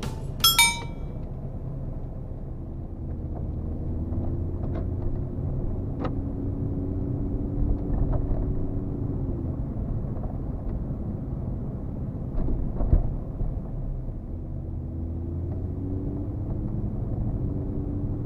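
Toyota Chaser's 1JZ-GTE turbocharged inline-six, freshly fitted with new iridium spark plugs, heard from inside the cabin while driving: the engine note rises as the car accelerates, drops back about halfway through, then rises again. A short bright chime sounds about half a second in, and there are a few faint knocks.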